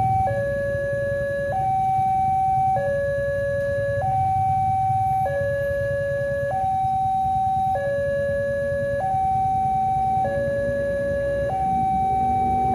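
Level-crossing warning alarm sounding a steady two-tone signal, switching between a higher and a lower pitch about every second and a quarter, which warns that a train is coming. A low rumble runs underneath.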